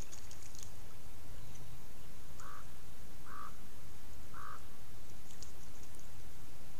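Three short bird calls, each a fraction of a second long and about a second apart, over steady outdoor background hiss.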